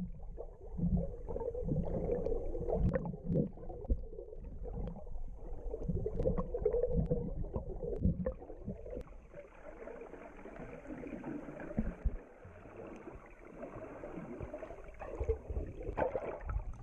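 Muffled sound from an underwater camera: water gurgling with irregular low bumps against the housing. A steady hiss joins about halfway through.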